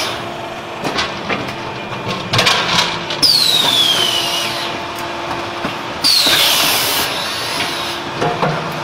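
Terrazzo floor tile press cycling: a steady machine hum with clanks and knocks, then two sudden loud hissing releases about three seconds in and about six seconds in, each carrying a whistle that falls in pitch.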